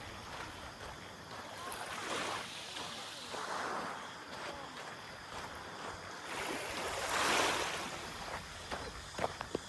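Small waves washing onto a beach, coming in several swells, with the largest about seven seconds in. A few light clicks come near the end.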